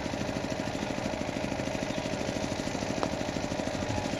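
An engine idling steadily close by, a fast, even chugging.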